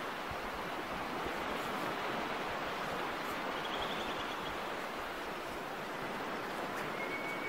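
Steady rushing of surf on a beach. A faint short high whistle comes a little under four seconds in and another near the end.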